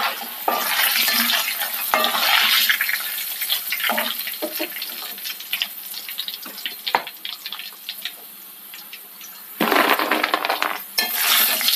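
Tapioca chips deep-frying in hot coconut oil, sizzling with many small crackles, nearly done, with scrapes and clinks of a wooden spatula and a wire spider strainer against the pan as the chips are scooped out. A louder rush of noise comes near the end as the fried chips are tipped from the strainer onto a plate.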